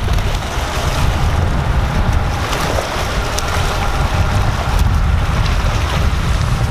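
Wind buffeting the microphone in a steady low rumble, with small waves washing over the rocks at the foot of a seawall.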